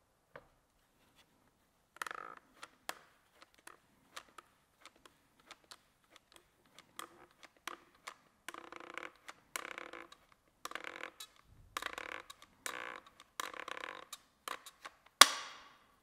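Hand-operated fischer FIS DMS dispenser gun clicking and scraping as its trigger is squeezed stroke after stroke, pressing two-part injection mortar through the static mixer and extension tube into a sieve sleeve. Short noisy bursts come in a run through the middle and later part, and there is one loud sharp click near the end.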